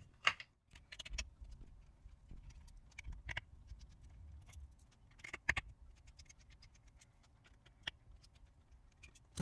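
Small Torx screws being unscrewed from the plastic base of an Amazon Echo Dot and set down on the workbench: irregular light clicks and ticks of the screwdriver and screws, with a few louder taps among them.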